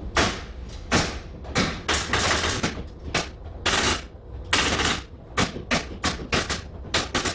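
Pneumatic nail gun firing a quick, irregular run of about fifteen sharp shots.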